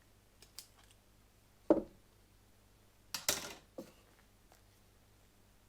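Small hand tools and their plastic parts being handled: a few scattered clicks and knocks, the loudest a sharp knock about two seconds in, followed by a brief clattering rattle a little past halfway.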